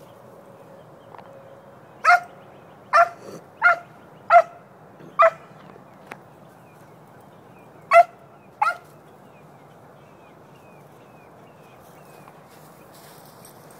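A dog barking at a rabbit it is chasing: seven short, sharp barks in an uneven run, five close together and then two more after a short pause.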